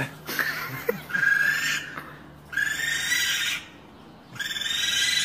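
Baby raccoons calling: three high-pitched cries about a second long each, one after another.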